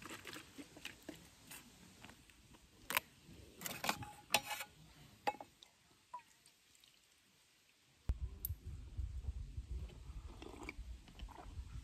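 Scattered clicks and knocks of a plastic makgeolli bottle and a small metal cup being handled as the rice wine is opened and poured. A steady low rumble sets in about two-thirds of the way through.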